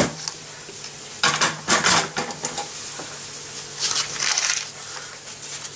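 Kitchen bowl and utensils being handled: a sharp knock at the start, then a few short clatters and scrapes about a second in and again about four seconds in.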